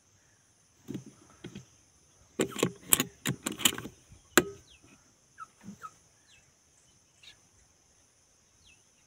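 A quick run of sharp knocks and clicks about two and a half to four and a half seconds in, over a steady high insect drone in the trees. A few faint, short, downward-sliding bird whistles come in the second half.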